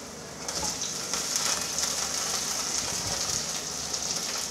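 Sliced onions frying in hot oil in a kadai, a steady sizzling hiss that gets louder about half a second in.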